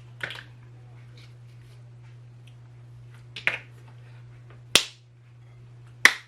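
Lobster shells being cracked open: a few sharp, short cracks, faint at first and loudest about five and six seconds in. A steady low hum runs underneath.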